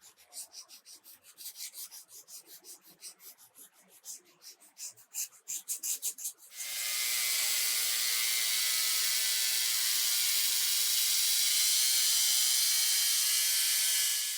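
Quick rubbing or sanding strokes, several a second, on a small part. About six and a half seconds in they give way to a louder steady hiss with a faint whine.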